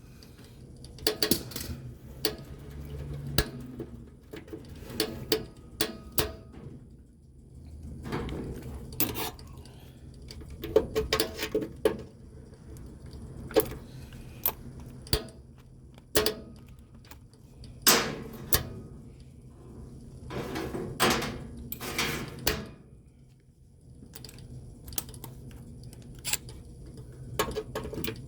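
Irregular clicks, taps and clatter of metal hand tools and small parts being handled, some in quick clusters, over a low steady hum.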